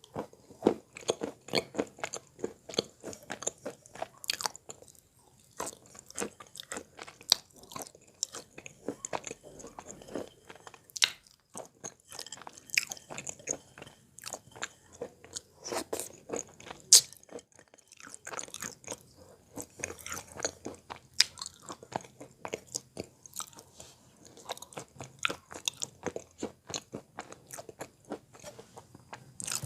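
Wet Belogorye chalk being bitten and chewed close to the microphone: a long run of dull, muffled crunches, irregular and quick, with a few short pauses.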